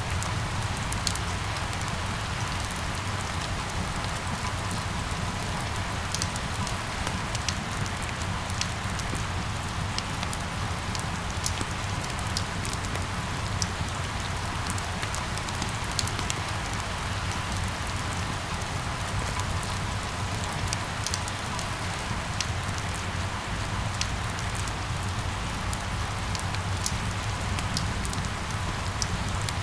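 Steady rain falling, with scattered sharp drop ticks over a continuous hiss and a low, even rumble underneath.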